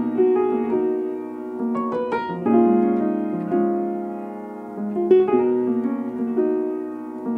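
A sampled keyboard loop in D minor played back in Maschine at 98 BPM: a slow progression of sustained chords, a new chord struck every second or so.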